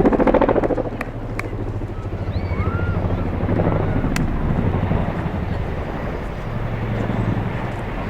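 Boeing CH-47 Chinook tandem-rotor helicopter flying past, its rotors chopping rapidly over a low steady engine hum, loudest in the first second and then settling into a steady drone.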